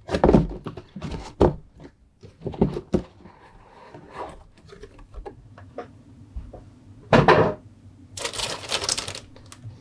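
Handling of a cardboard model-kit box and its plastic-bagged parts sprues: scattered light knocks and taps, a louder knock about seven seconds in, then about a second of crinkling plastic-bag rustle near the end.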